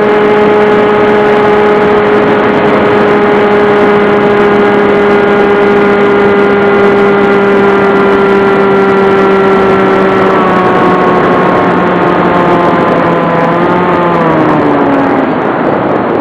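Radio-controlled model aircraft's motor and propeller running at steady throttle, heard from its onboard camera with air rushing past. Near the end the pitch falls as the throttle is cut and the motor note fades, leaving the rush of air as the model descends.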